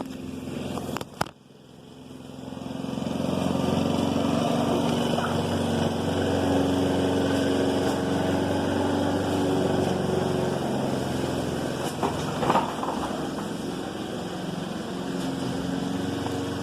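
Engine running steadily, growing louder over the first few seconds and then holding an even pitch, with a couple of faint clicks of handling.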